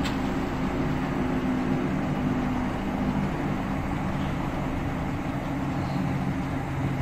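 Class 465/9 Networker electric train's GEC Alsthom GTO-VVVF traction motors humming steadily under the wheel and track rumble, heard inside the carriage while the train runs between stations. The low motor tones shift slightly in pitch about halfway through, and there is a short click at the start.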